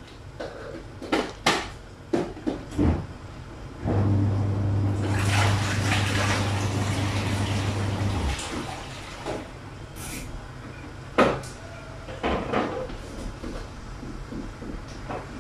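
Clinks and knocks of a small bowl against a non-stick wok as cooking oil is poured into the empty pan. In the middle there is a steady hiss with a low hum for about four seconds that cuts off abruptly, and a few more knocks follow.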